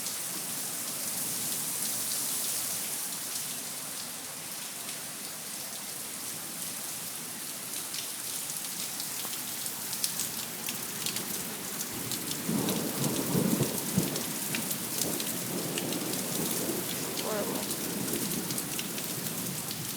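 Heavy rain pouring steadily, with sharp drop impacts ticking through the downpour. A low rumble swells in about twelve seconds in and fades a couple of seconds later.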